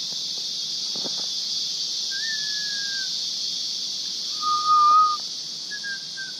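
Steady high-pitched chorus of forest insects, with three clear whistled notes over it: a slightly falling one about two seconds in, a louder level one about four and a half seconds in, and a short falling one near the end.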